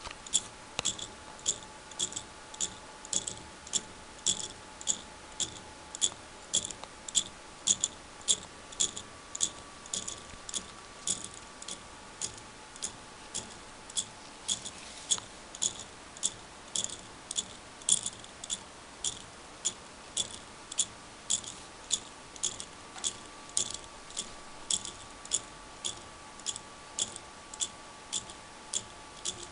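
Lego Technic pendulum clock with a recoil pin wheel escapement ticking steadily: sharp plastic clicks a little under twice a second as the escape wheel is let through by the pendulum-driven pallets.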